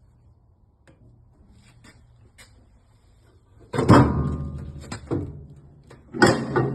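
Two loud metal clangs from the steel door of a Mac-Fab Systems baler being swung shut, each ringing on and fading, with light clicks and knocks before them.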